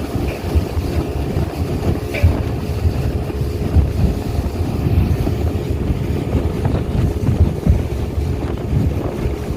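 Speedboat engine running steadily under way, with wind buffeting the microphone in a heavy, gusty rumble.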